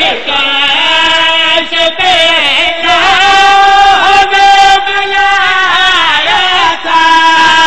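A man's voice chanting a devotional verse through a loudspeaker, holding long notes and sliding in pitch between them, in the sung style of a Shia majlis recitation.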